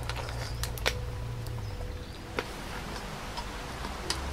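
Ladle and cooked mussel shells knocking against a cast-iron pot and a bowl as the mussels are ladled out: three sharp clicks about a second and a half apart, with fainter ticks between, over a steady low rumble.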